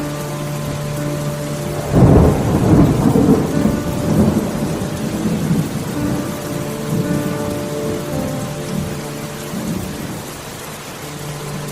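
Steady rain with a clap of thunder that breaks about two seconds in and rolls on for several seconds before fading.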